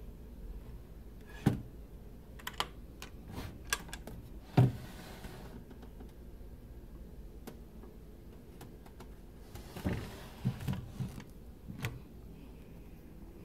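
Wooden dresser drawer being handled, opened and pushed shut: a string of clicks and knocks from the metal drawer pulls and the wood, the loudest about four and a half seconds in, followed by a short sliding scrape. A second cluster of knocks comes near the end.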